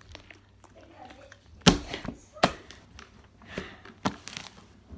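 Large glossy white slime, with lotion, water and baby oil mixed in, being squeezed, stretched and poked by hand. It gives wet squelches and sharp little pops, the two loudest pops close together a little before and just after the middle.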